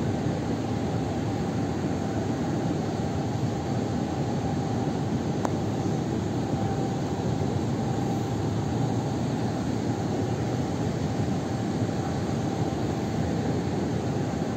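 Air-conditioning units running: a steady low rushing hum with a faint steady tone in it. A small click about five seconds in.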